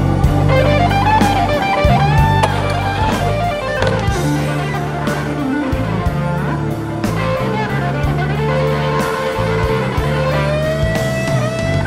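Background music: a song led by electric guitar over a steady drum beat.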